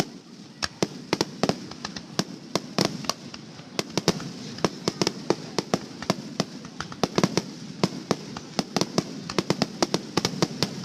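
Fireworks finale: a rapid, dense barrage of sharp bangs and cracks, several a second, over a continuous crackling haze.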